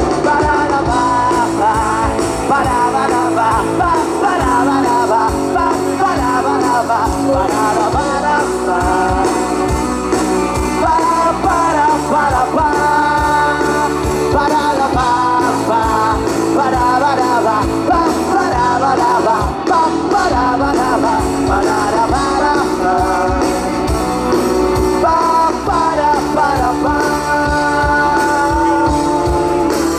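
A live pop-rock band playing a song, with drums, bass and a sung or lead melody over the top.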